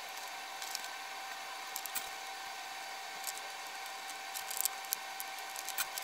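Faint scattered clicks and rustles of fingers handling a small printed circuit board, pushing resistor wire leads through its holes and bending them, over a steady background hiss with a faint steady whine.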